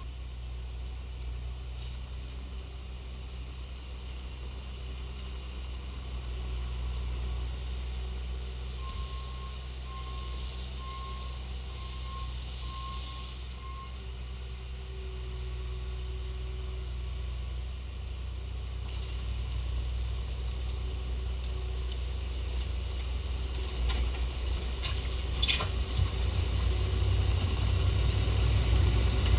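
Bobcat T870 compact track loader's diesel engine running steadily. About nine seconds in, its backup alarm gives a string of even beeps for several seconds, the sign that the machine is reversing. Near the end the engine grows louder and there are a few sharp clanks.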